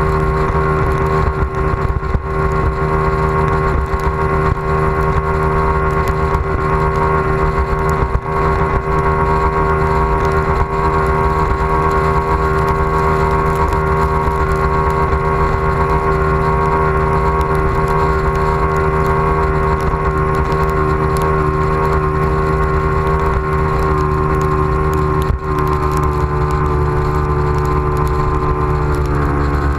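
Outboard motor of a bass boat running flat out at a steady pitch, with wind rushing over the microphone and a few brief knocks from the hull. Near the end the engine pitch drops a little as it eases off.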